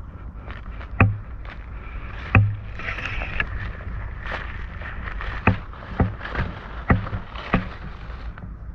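Irregular knocks and rustling as someone moves through grass and dead leaves with a handheld camera: about six sharp thumps at uneven intervals over a steady low rumble of handling noise.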